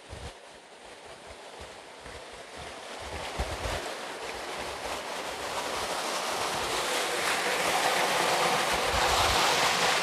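Rushing, splashing water from a small hot-spring waterfall pouring into a rock pool, growing steadily louder, with occasional low buffeting of wind on the microphone.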